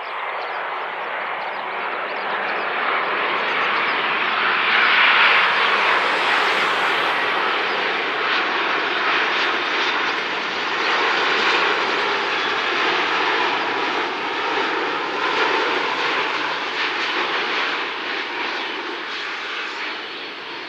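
Boeing 787-8 Dreamliner's jet engines running loud as the airliner passes, building to a peak about five seconds in, holding, and easing slightly near the end.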